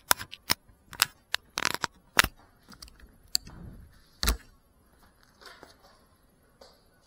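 Close handling noise from an FPV drone being held and adjusted by hand: a quick run of sharp clicks and knocks, then a single louder thump about four seconds in as it is set down on the floor. The motors are not running.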